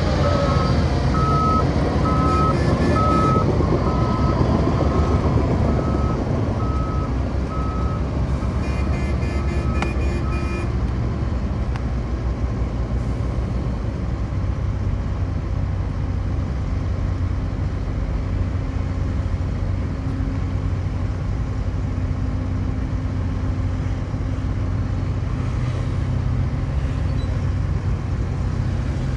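Heavy diesel construction machine running steadily, its reversing alarm beeping about once a second for the first ten seconds, then the engine alone.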